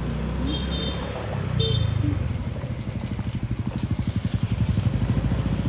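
Small motorbike engine running at low speed, with a fast, even pulsing beat through the second half. Three short, high chirps come in the first two seconds.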